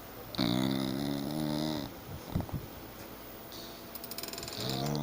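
Snoring: a steady droning snore about a second and a half long starting just under half a second in, then the next one beginning about four seconds later, near the end.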